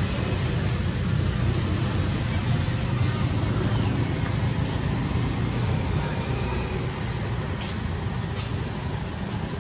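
A steady low engine rumble, with a fast, even, high-pitched insect pulsing running above it.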